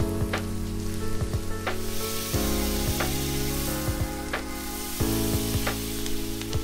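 Skirt steak sizzling on a hot grill grate, its fat spitting as it cooks on the second side. Background music with held chords that change every couple of seconds runs under it.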